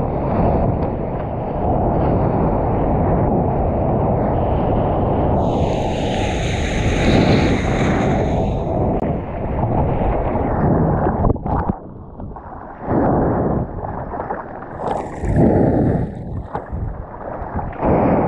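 Water rushing and wind buffeting a surfboard-mounted action camera as the board rides a wave, with a louder splash about six seconds in. In the second half it breaks into separate splashes about once a second as the surfer paddles through chop.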